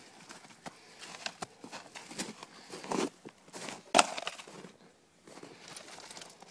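Scattered crunching in snow and snapping of small twigs and sticks as a dog moves through brush. One sharp crack comes about four seconds in.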